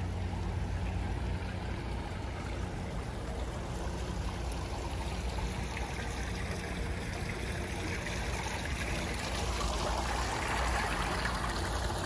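Water trickling and splashing in a small garden fountain, growing louder near the end, over a steady low hum.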